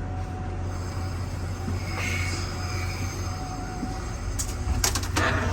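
Steady low hum inside a standing passenger rail car. Near the end a few clicks and knocks come, then louder rushing noise, as a door between cars is opened.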